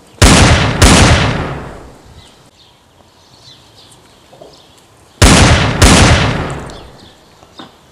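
Gunshot sound effects dubbed over a toy-gun fight: two loud shots about half a second apart, then two more about five seconds later, each with a long fading echo.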